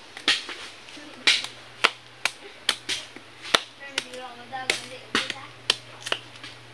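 Knife blade chopping into a bamboo shoot: a string of about a dozen sharp, hard strikes, roughly two a second and unevenly spaced.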